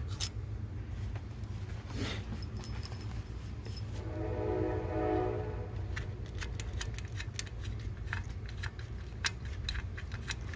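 A distant train horn sounds for about two seconds, starting about four seconds in, over a steady low rumble. Scattered small clicks are heard around it.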